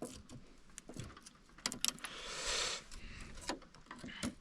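Flathead screwdriver prying at partly drilled-out rivets in a snowmobile's rear bumper: scattered light metallic clicks, two sharp ones a little under two seconds in, then a brief scrape.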